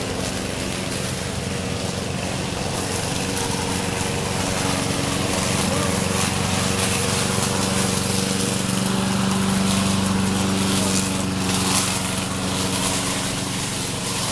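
Petrol walk-behind lawn mower engine running steadily, getting a little louder in the middle.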